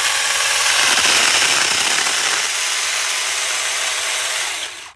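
Saker 20 V cordless mini chainsaw running and cutting through woody shrub stems at ground level, a steady, loud whir of motor and chain in wood that stops abruptly near the end.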